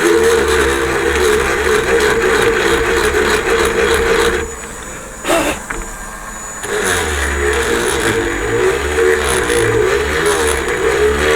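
Small electric rotary drill running steadily as it bores out a hole in a plastic model part. Its sound drops away for about two seconds near the middle, with one short click in the lull, then picks up again.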